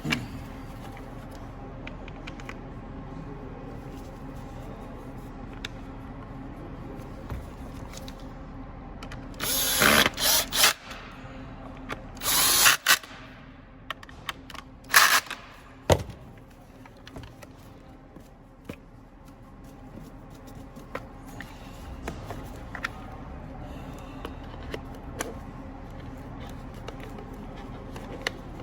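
A power drill running in short bursts, about ten seconds in, again around twelve seconds, and twice more near fifteen and sixteen seconds; the second burst tails off as the drill spins down.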